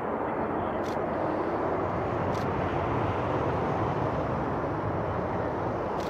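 Military jet engine noise: a steady rushing sound that grows slightly louder, with three faint high ticks along the way.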